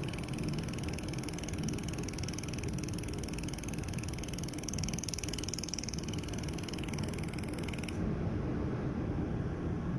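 Pulsed YAG laser welder firing on a rotating pipe: a rapid, even crackling buzz of laser pulses that stops abruptly about eight seconds in, over a steady low machine hum.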